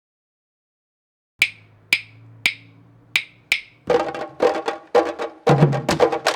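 Candombe drumming: five sharp wooden clicks in a three-then-two clave pattern, like sticks on the drums' wooden shells, then the drums come in with a fast, dense rhythm of pitched strokes about four seconds in.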